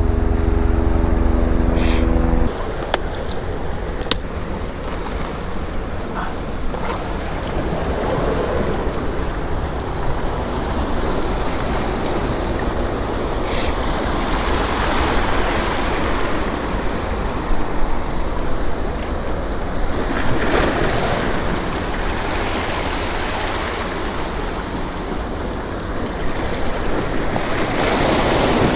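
Water washing against the rocks of a jetty, the wash swelling and easing in waves. A low, steady hum with a clear pitch cuts off suddenly about two and a half seconds in.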